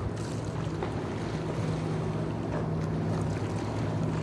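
Steady low hum of the steam freighter Wilfred Sykes's machinery as the ship passes close by, with wind rumbling on the microphone.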